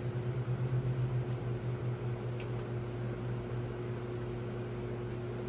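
A steady low machine hum from a running motor, pulsing slightly through the first couple of seconds and then even.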